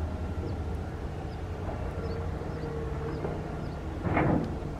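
Steady low outdoor rumble with a few faint, short high chirps over it, and one brief louder noise about four seconds in.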